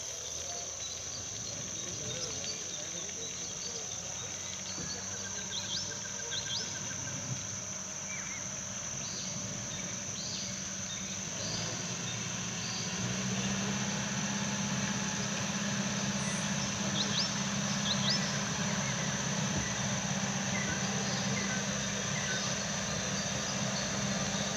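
Insects droning steadily at a high pitch, with scattered short bird chirps. A low steady hum grows louder about halfway through.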